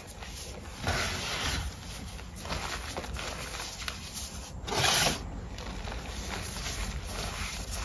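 Hot pink powdered gym chalk being crushed and squeezed between bare hands: a soft, dry, powdery rubbing and crumbling. There are louder squeezes about a second in and, loudest, about five seconds in.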